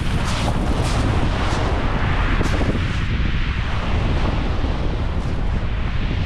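Wind buffeting the microphone in a steady, loud rumble, over the wash of surf on the beach.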